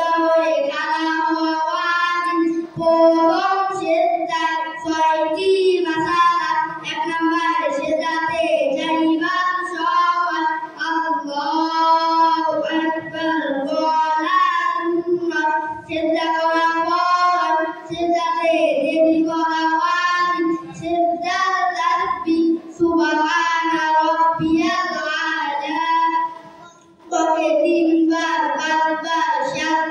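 Two boys singing together into microphones, a melodic song in one continuous line, with a brief break for breath near the end.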